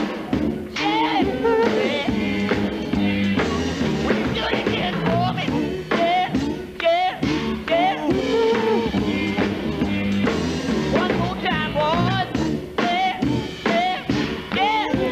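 Male gospel quartet singing with instrumental backing. The lead voice slides and wavers in pitch over the group's harmony.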